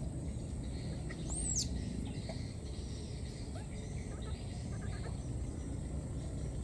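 Outdoor ambience: a steady low rumble, with a single short high-pitched chirp about one and a half seconds in and a few faint short calls later.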